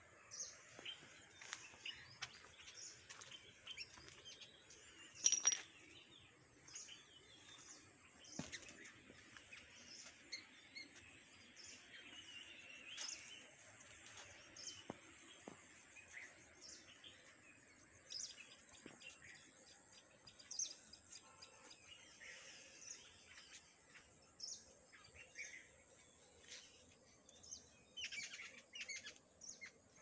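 Faint birdsong: scattered short chirps and calls, with one louder call about five seconds in and a quicker run of chirps near the end.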